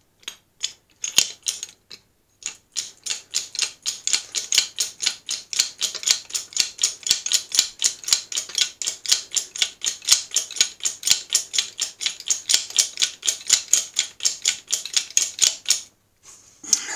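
Hydraulic bottle jack (10-ton) being pumped by its handle to raise the press: fast, even clicking, about four or five clicks a second. The clicking starts sparse, settles into a steady rhythm after a couple of seconds, and stops shortly before the end.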